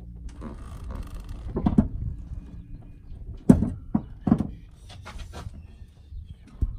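Rear seat of a Ford F-250 Super Duty being lowered back into place over the amplifiers: rustling and shifting at first, then three sharp knocks a few tenths of a second apart as the seat frame comes down, the first the loudest.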